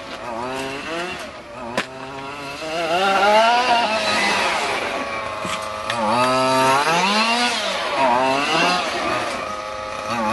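Small two-stroke engine of a radio-controlled car revving up and down repeatedly, its pitch rising and falling with the throttle. There is a single sharp knock about two seconds in.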